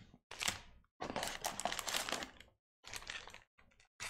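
Foil trading-card pack wrappers crinkling and rustling as they are handled, in several short bursts with brief silent gaps between them.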